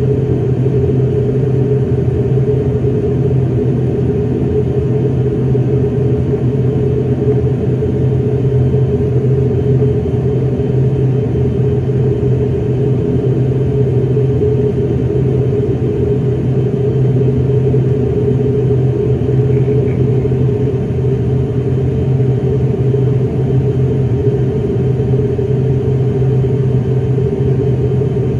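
An ATR 42-600's turboprop engines running while the aircraft stands still, heard inside the cabin: a loud, steady drone with two low, even hum tones that do not change.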